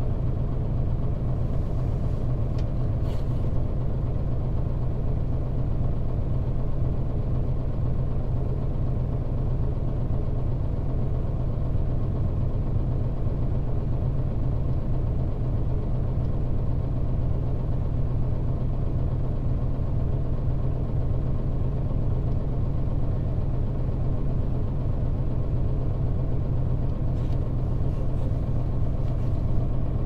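Mitsubishi Fuso KL-MP35JM city bus's naturally aspirated 12.9-litre 6M70 inline-six diesel idling steadily, an even low rumble heard from inside the bus.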